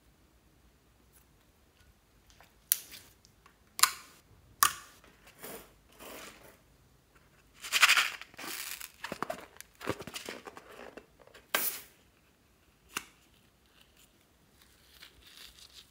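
Close-up handling noises from clear slime and a filled rubber balloon: a few sharp snaps and crackles, then a longer stretch of rubbing and crinkling. A single scissors snip about thirteen seconds in, as the balloon's neck is cut.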